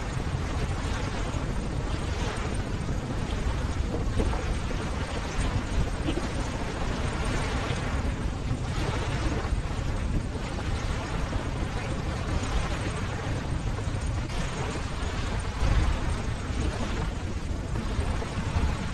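Ocean waves washing on a shore: a continuous deep noise that swells louder every few seconds as waves break.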